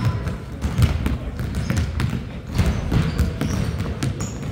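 Basketball bouncing on a gym court during play, amid irregular knocks and short high squeaks over a steady low rumble.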